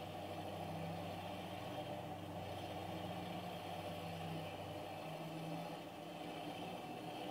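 Heavy vehicle engines running together: an MTZ tractor pushing a stuck truck, and a bus driving past. The hum is steady, and its lowest tone drops away about five seconds in.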